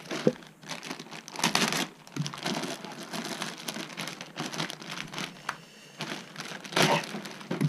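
Clear plastic bag crinkling in irregular bursts as it is handled, loudest about a second and a half in and again near the end.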